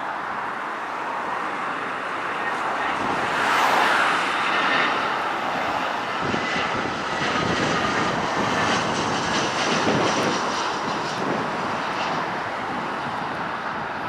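Airbus A320 jet engines passing during a landing. The noise swells to its loudest about four seconds in, with a high fan whine over the rush. It stays strong for several seconds, then slowly dies away.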